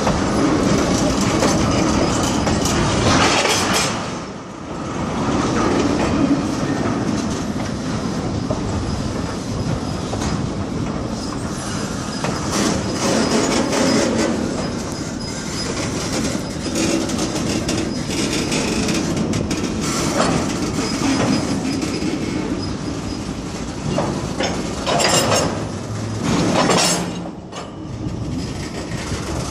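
Loaded freight cars rolling slowly on jointed rail, the wheels clacking over the rail joints in a steady run of knocks, with a few louder knocks near the end.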